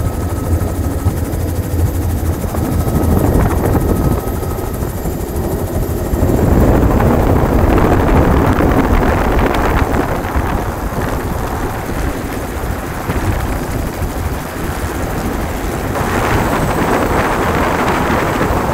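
Helicopter in flight heard from inside the cabin with the door open: a steady low rotor and engine drone under heavy wind rush. The rush grows louder about six seconds in and again near the end.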